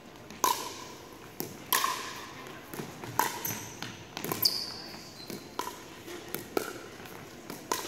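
Pickleball rally: about eight sharp pops of paddles striking the plastic ball and the ball bouncing on the hardwood court, roughly one a second, echoing in the gym. A brief high squeak about halfway through.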